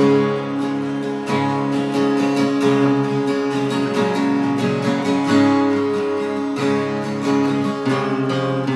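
Two acoustic guitars playing an instrumental intro together, strummed chords with no voice, starting suddenly.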